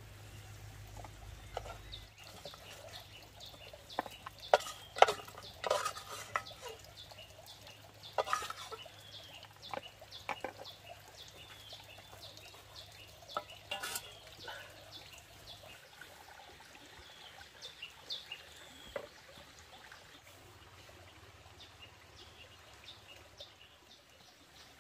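Cooking at a wood-fired clay stove: a metal pot, lid and ladle clinking and knocking in scattered sharp strokes, most of them in the first half, over background bird calls.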